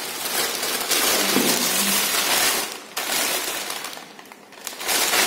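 Thin plastic carry bag crinkling and rustling as it is handled and opened, loudest in the first three seconds, easing off for a moment and picking up again near the end.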